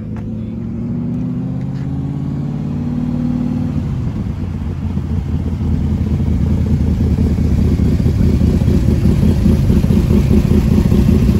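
Superformance Cobra replica's Roush 427 V8 running through its side pipes as the car drives up slowly. The engine holds a steady low note at first, then turns rougher and louder from about four seconds in as it draws close.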